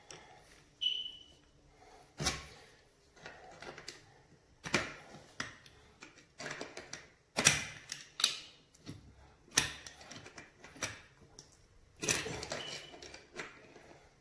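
Grips clicking against the brass compression nut of a 20mm stop tap as it is tightened in short turns: about nine sharp metallic clicks, one every one to two seconds.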